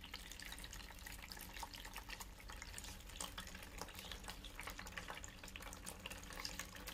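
Water draining from a small tube at the bottom of a plastic bottle and dripping into a basin: a faint, steady patter of many small, irregular drips. The draining water is what pulls the cigarette smoke down into the bottle.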